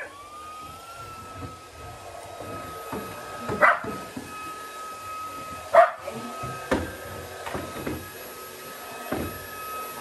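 Shark EVOPOWER cordless stick vacuum switching on, its motor whine rising in pitch over the first second and then running steadily. A Shetland sheepdog barks over it a few times, loudest a little under four seconds in and again near six seconds.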